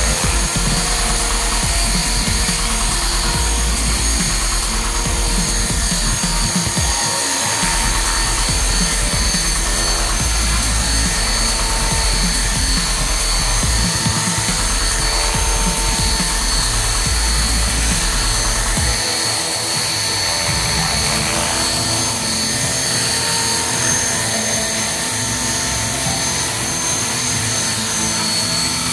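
T-Rex 450-size electric RC helicopter hovering: the rotor running steadily with a high, even whine from its motor and drive gears.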